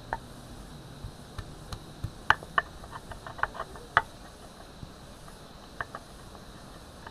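Faint steady insect drone with a scattered series of short, sharp clicks and taps, most of them bunched between one and four seconds in.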